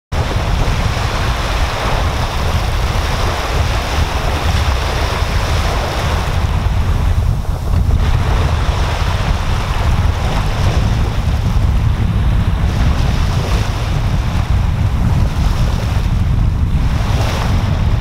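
Small waves breaking and washing up a sandy beach, a continuous hiss of surf that ebbs briefly a couple of times, over a steady heavy rumble of wind on the microphone.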